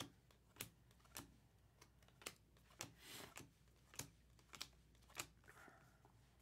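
Near silence broken by faint, evenly spaced light clicks, about one every half second or so, with a brief soft rustle about three seconds in.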